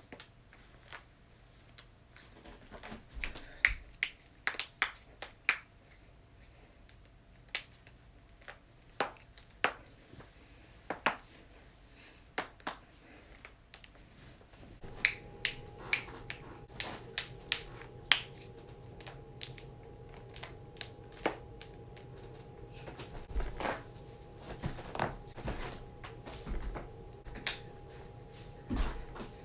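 Human joints cracking: a long series of sharp, irregular pops, some coming in quick clusters. About halfway through, a steady hum starts underneath.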